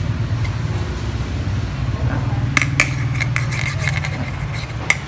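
A few light metallic clicks in the second half, as a screwdriver taps against the aluminium sleeve of a Toshiba copier's magnetic developer roller while it is tested for magnetic pull, over a steady low hum.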